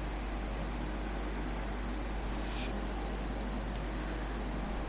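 Steady high-pitched whine with a low hum under an even hiss, unchanging throughout: background noise of the recording, with no other sound.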